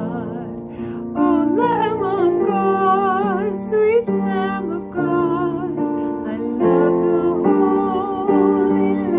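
A woman singing a slow praise song with vibrato over held keyboard chords.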